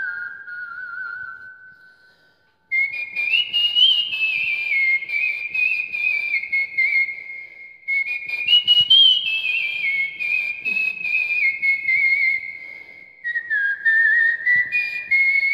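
A man lip-whistling a song melody in imitation of a bamboo flute. A falling phrase fades out, and after a short break about two seconds in, three more phrases follow, each starting high and stepping down.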